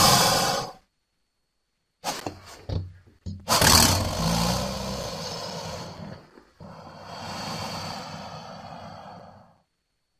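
Crocodilian growls. One growl ends at the start, a few short grunts follow about two seconds in, then come two long growls of about three seconds each, separated by a brief gap.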